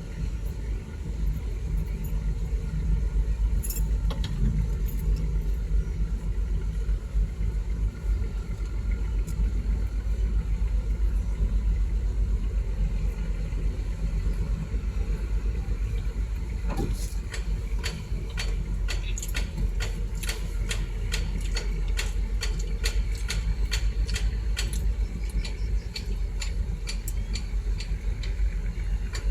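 Heavy machinery engine running steadily with a deep low rumble; from a little over halfway, a long run of sharp clicks and ticks joins it.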